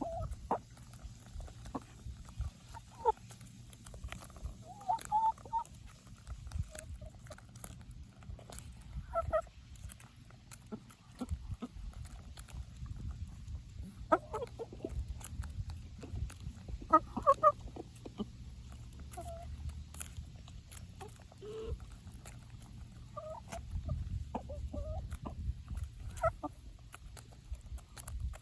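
Chickens clucking, with short calls scattered every second or two among small sharp clicks.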